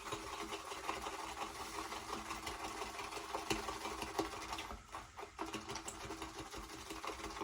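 Boar-bristle shaving brush swirled quickly in a lathering bowl, a steady wet brushing and clicking as the soap is whipped into lather, with brief pauses near the middle.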